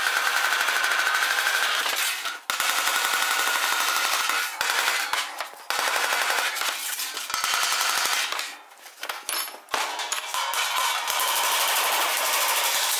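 A hand body hammer beats rapidly on a sheet-metal floor panel, working around the edge of a pressed-in recess to shape the new floor pan. The blows are ringing and come in quick runs, with short breaks and a longer pause about two-thirds of the way through.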